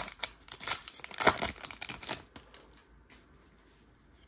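A baseball card pack's wrapper being torn open and crinkled, a dense crackling that lasts about two seconds and then dies away to near quiet.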